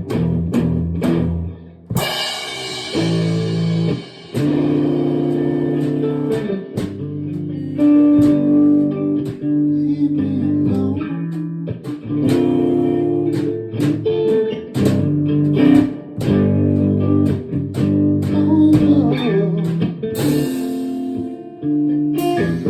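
Band playing an instrumental passage with no vocals: guitar over bass guitar and drums, with a crash about two seconds in.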